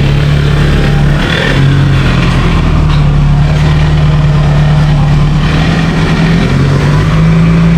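A 2002 Toyota Camry's engine running while the car is driven: a steady engine hum whose pitch steps up slightly about a second in and again in the second half.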